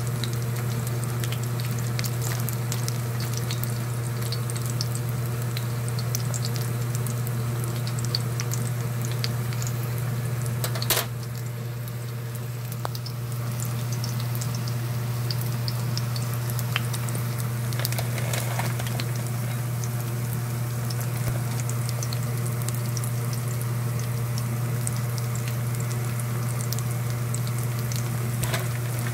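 Battered pork pieces shallow-frying in hot oil in a stainless steel pan: steady sizzling with scattered crackles, over a steady low hum. A single sharp tap about eleven seconds in.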